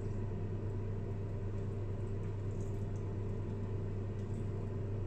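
Steady low hum of room tone, even throughout with no distinct events.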